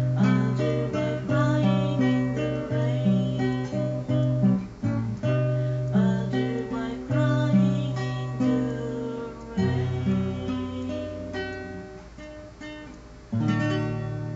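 Acoustic guitar picked and strummed, with a man singing over it in the first few seconds. The playing slows and fades, then a final chord is struck about a second before the end and left to ring: the close of the song.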